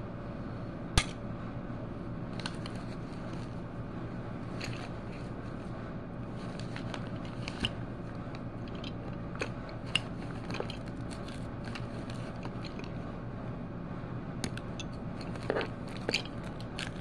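Steady low background hum with scattered light clicks and taps. The sharpest click comes about a second in.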